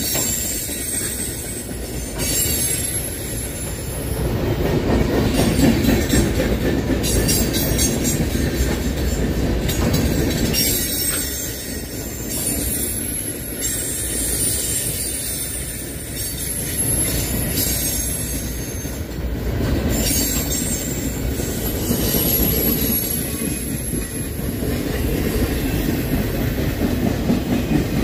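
A string of empty flatcars rolling past: a steady rumble of steel wheels on rail, with clicks and clatter as the trucks cross rail joints, and a thin, high wheel squeal coming and going.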